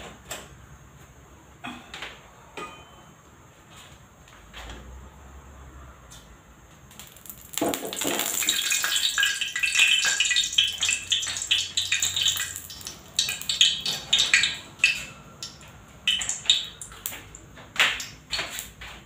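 Kitchen clatter of dishes and utensils, scattered clinks and knocks, with a loud stretch of dense crackling hiss from about seven and a half seconds to fourteen seconds in.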